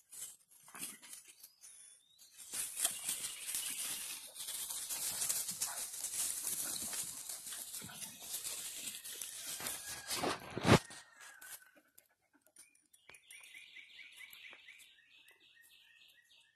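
Dogs scuffling and running through dry leaves and pine straw, a rustling, crunching noise, with one sharp knock about ten and a half seconds in. Near the end, a faint high-pitched sound goes on for a few seconds.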